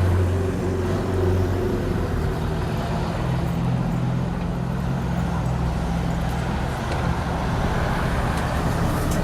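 Leyland Atlantean double-decker bus engine running on the move, heard from on board, with road and body noise; the engine note changes about two seconds in.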